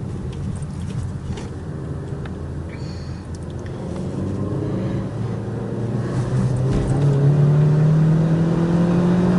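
Car engine heard from inside the cabin as the car drives on and accelerates. Its drone grows louder and rises slowly in pitch over the second half.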